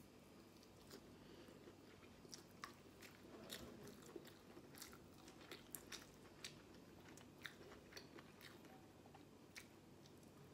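Faint chewing and mouth sounds of a person eating food by hand, with many small wet clicks scattered through.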